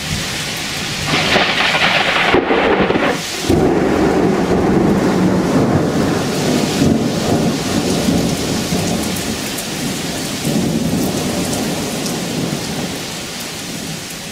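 Thunder from a severe thunderstorm over steady rain: a sharp rushing crash in the first few seconds, then a long low rumble that slowly fades.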